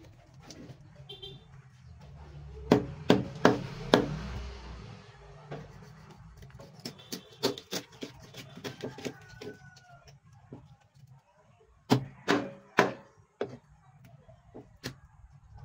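Heavy kitchen knife chopping a tuna into steaks on a cutting board, with sharp knocks as the blade strikes through to the board. A quick run of four hard chops comes a few seconds in, lighter taps and cuts follow, and another cluster of heavy chops comes near the end.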